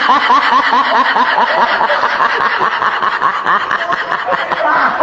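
A person snickering: a fast string of short, repeated laughs.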